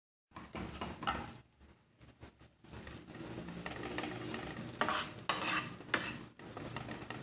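Spatula scraping and tossing sliced tindora (ivy gourd) around a non-stick frying pan, over a steady sizzle of frying oil. A few louder scrapes come in the second half, as the slices fry uncovered until they shrivel.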